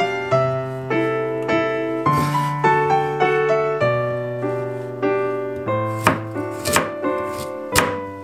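Soft piano background music, with a chef's knife chopping a root vegetable on a bamboo cutting board a few times, the sharpest strikes in the second half.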